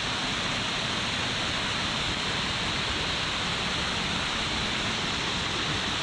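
Waterfall: the steady, unbroken rush of falling water.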